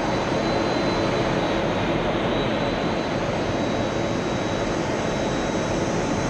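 F-16 fighter jet's engine and rushing air, heard from inside the cockpit as a steady, even noise with a thin high whine over it.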